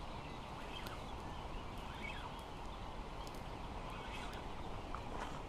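Steady faint outdoor hiss with a few scattered bird chirps and small clicks.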